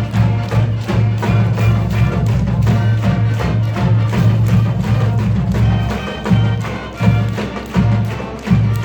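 Band music with a steady beat of percussion strokes over sustained low brass-like tones.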